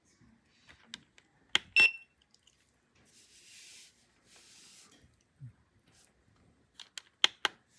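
YIHUA 982 soldering station's controls clicking and giving short beeps as the temperature wheel is worked: a pair about one and a half seconds in and another pair near the end, with faint rustling in between.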